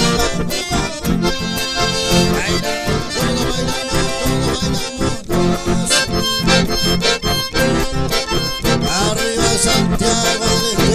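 Two accordions playing a dance tune together, with acoustic guitar and a steady, regular low beat underneath.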